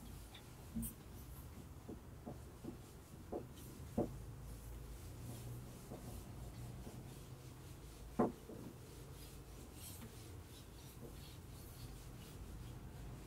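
Faint writing on a board: scratchy strokes with scattered light taps and knocks, the sharpest about four and eight seconds in.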